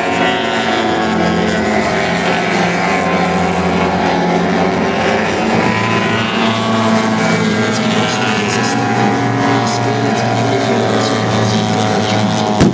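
Engines of large radio-controlled model aircraft running steadily at speed, the pitch rising and falling as the models pass. A single sharp bang near the end.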